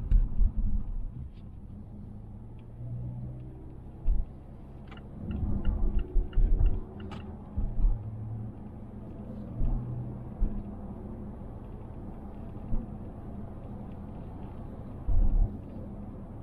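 Inside the cabin of a moving 2020 Mazda Atenza 2.5L: a steady low road rumble, with several heavy low thuds as the car rides over bumps. Short sharp clicks and ticks come in among the jolts, the interior rattle that the car makes whenever its body is shaken.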